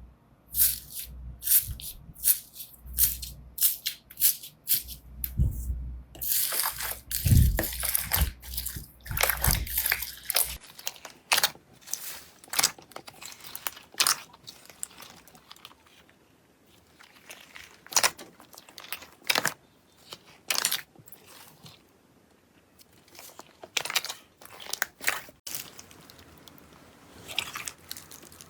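Slime being squeezed and poked by hand, making dense crunchy crackles and squishy clicks. About ten seconds in it cuts to quieter, sparser pops and clicks.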